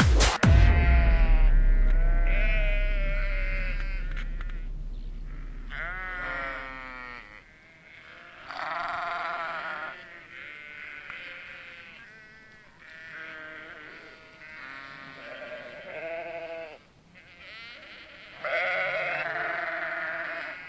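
A song cuts off just after the start, and its last low bass note fades out over about seven seconds. A string of short wavering bleating calls follows, each about a second long, with pauses between.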